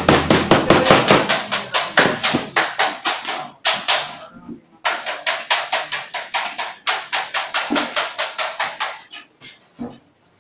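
Hammer striking the galvanized sheet-metal collar of a square-to-round duct transition in a fast, even run of blows, about five a second. The blows stop for about a second near the middle, resume, and die away near the end.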